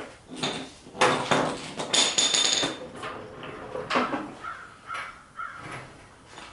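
Metal knocking and clanking with a high ringing clatter about two seconds in and a few short squeaks near the middle: shop work around an engine on a crane.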